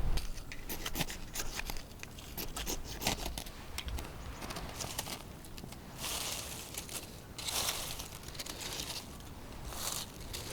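Close handling sounds: crinkling and rustling with many small sharp clicks and ticks, and three longer rustling bursts about six, seven and a half, and ten seconds in.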